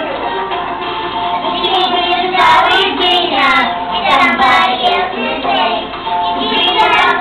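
Young children singing together over backing music.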